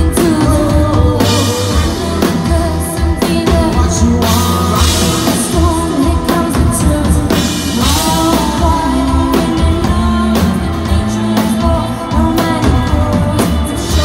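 Live rock band playing: a woman singing lead over electric guitar, bass guitar and drum kit.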